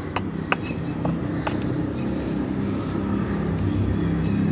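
Steady low engine drone from a motor vehicle, growing slightly louder near the end, with a few sharp clicks in the first second and a half.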